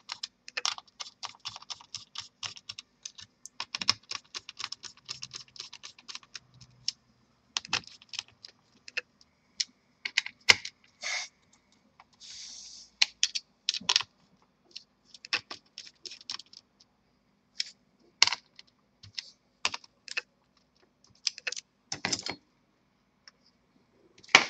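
Small screwdriver tightening the heatsink screws on a laptop's CPU/GPU cooler: a run of light, irregular metallic clicks and ticks as the bit seats and turns in the screw heads and the hands shift on the chassis, with a short scuffing rustle about twelve seconds in.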